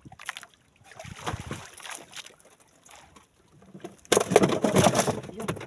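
Water sloshing and splashing beside an outrigger boat as a handline is hauled in by hand, with a louder spell of splashing about four seconds in that lasts over a second.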